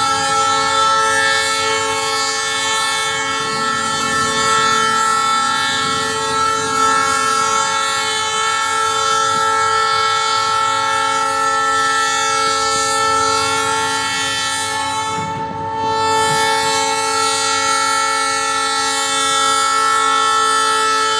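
Diesel locomotive's multi-note air horn sounding one long chord, held almost without a break except for a short gap about 15 seconds in: the crossing warning as the train nears a road crossing.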